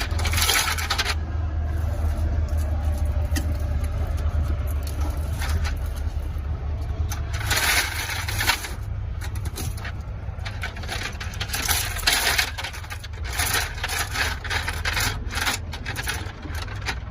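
M134 minigun firing a sustained stream, heard as a continuous low buzz, with recurring spells of hiss and dense metallic clinking.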